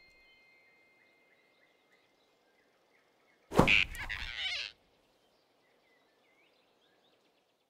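Cartoon sound effect of a big rabbit snatching a squirrel: a sudden loud noisy burst about halfway in, lasting about a second, over faint birdsong.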